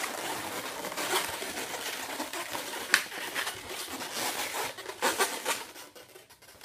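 Latex twisting balloons being pressed, pushed and rubbed against each other as a balloon figure's head is fitted onto its body, squeaking and rubbing, with one sharp snap about three seconds in.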